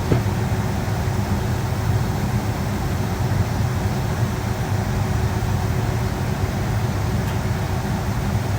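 Steady cabin noise inside a Boeing 757-200 airliner: a low, even rumble of jet engines and airflow with a faint steady hum, and a single small click right at the start.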